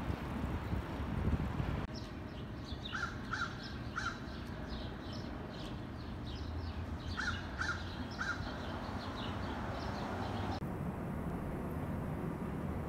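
Birds chirping busily, with one bird giving three short calls in a row twice over, between a low street rumble at the start and a steady low city hum that takes over near the end.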